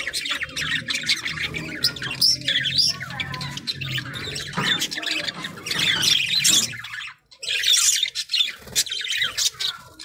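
Budgerigars chattering and squawking, a dense run of quick overlapping calls with a brief break about seven seconds in. A low steady hum runs beneath the first half.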